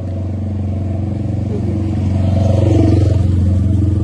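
Motorcycle engine running steadily, growing louder over the first three seconds.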